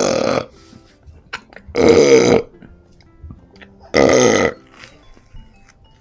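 Three loud, drawn-out burps about two seconds apart. The first is already under way and ends just after the start; the other two each last just under a second.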